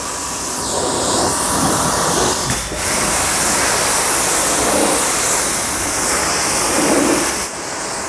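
High-pressure water jet from a QPT by STARQ QT-30 commercial pressure washer spraying steadily against a muddy car tyre and body panel, a hard hiss of water blasting mud away. The spray briefly dips about two and a half seconds in and falls off near the end.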